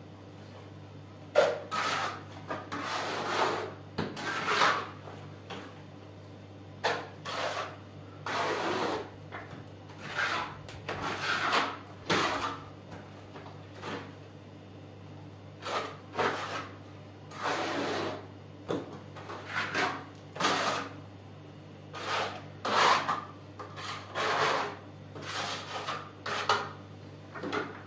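Steel plastering trowel scraping soft mortar out of a plastic bucket and smearing it onto a masonry wall, in repeated rasping strokes of about a second each at irregular intervals. The mix is too soft and runny.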